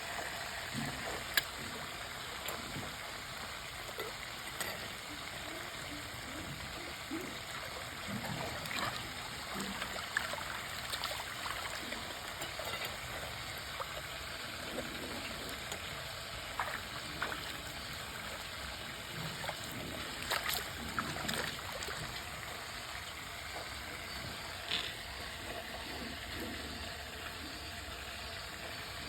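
Steady trickle of running water, with scattered small splashes and clicks from a Japanese macaque playing in it.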